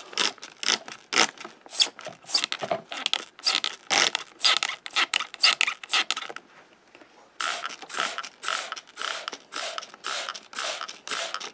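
Water sprayed in quick repeated squirts from a small 'power wash' sprayer onto a muddy die-cast toy car in a plastic basin, washing the mud off. The squirts come about two or three a second, with a pause of about a second a little past halfway.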